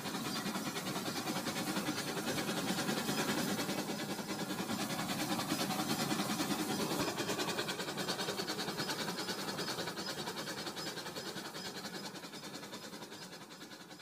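Toy train running on plastic track: a steady whirring rattle from its motor and wheels with fast, fine ticking. It grows louder as the train comes close and fades as it moves away near the end.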